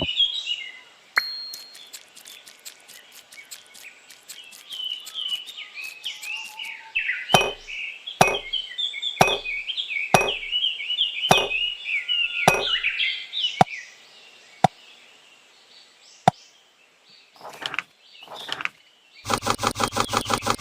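Birds chirping over a series of about six sharp taps, roughly a second apart, through the middle. A fast, even buzzing rattle starts near the end.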